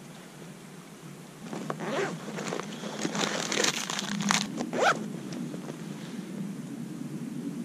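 Hands handling fishing tackle at a vest: scratchy rustling and a zipper-like rasp, starting about a second and a half in and stopping about five seconds in, loudest near the end.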